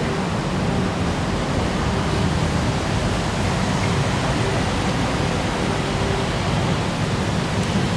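Steady, even rushing noise of an open-air train station platform's ambience, heaviest in the low end, with a faint hum coming and going.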